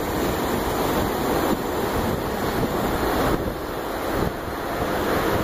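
Wind blowing across the microphone: a steady rushing noise with low rumbling buffets.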